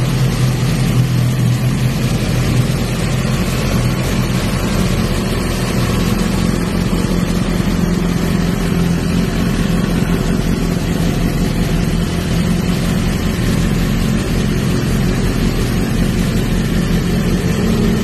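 2020 Honda CB1000R's inline-four engine idling steadily through an aftermarket Akrapovič-style stainless slip-on muffler with a carbon tip.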